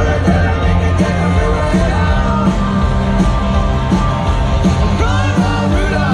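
Live rock and roll band playing a song at full volume, with a steady bass line under bending melodic lines.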